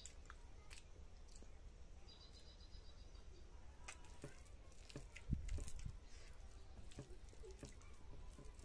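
Faint eating by hand: small clicks and smacks of chewing, with fingers squishing rice and curry on a plate, and a louder thump about five seconds in. A short run of high chirps from a bird sounds between two and three seconds in.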